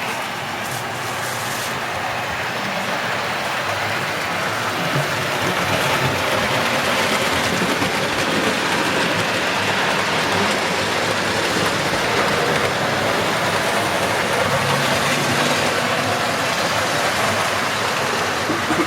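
Steady rushing noise, even and continuous, growing a little louder about five seconds in.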